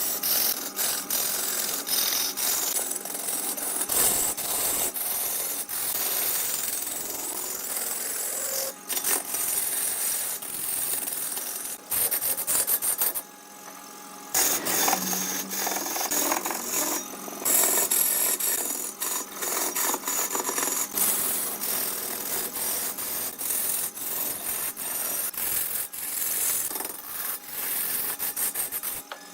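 Turning tool cutting and scraping wood spinning on a large wood lathe: a continuous rasping noise with many small clicks, easing off briefly about halfway through.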